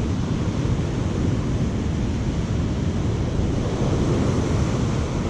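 Ocean surf rushing steadily while wind buffets the microphone with a low, uneven rumble.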